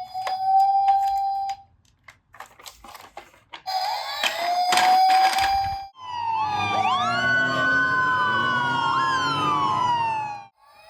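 Police car sirens. A single wail sounds at the start and again around four seconds in, with a pause of light clicks and taps between. From about six seconds in, several sirens overlap, rising and falling, and they stop shortly before the end.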